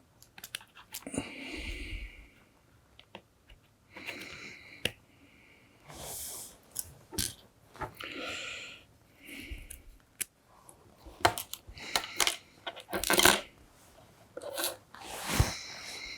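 Small tools and electronic parts handled on a workbench during kit assembly: scattered sharp clicks and taps, with several short scraping and rustling sounds of about a second each.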